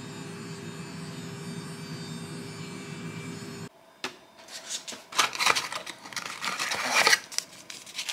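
A Foreo facial cleansing brush buzzes steadily, then stops abruptly a little over three seconds in. Paper and cardboard tea packaging follows, rustling and crinkling in irregular bursts as it is handled.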